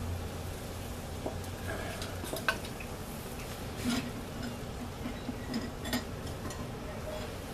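Scattered metallic clinks and knocks of foundry tools and metal being handled, a few separate taps with the sharpest about two and a half seconds in.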